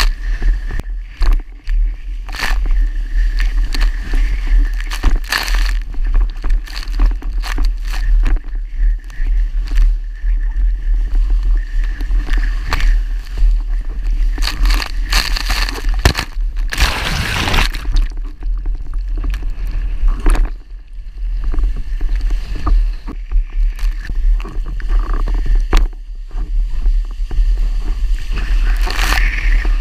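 Wind buffeting an action-camera microphone and water rushing past a planing Fanatic FreeWave windsurf board, with frequent sharp slaps of the hull hitting chop and a louder rush about seventeen seconds in.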